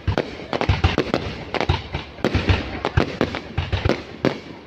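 Fireworks going off in a dense, irregular string of sharp bangs, several a second, overlapping one another.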